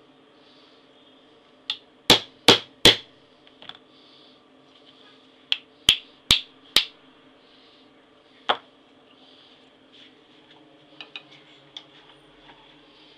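Light taps of a small hammer on metal at a knife-making bench: three sharp taps about two seconds in, three more about six seconds in, and a single tap a little later, over a faint steady hum.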